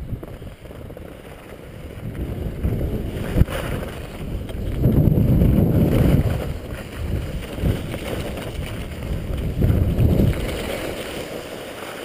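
Wind buffeting the microphone of a skier's camera on the move downhill: a low rush that swells and eases, loudest about five seconds in and again near ten seconds. A single light knock comes about three and a half seconds in.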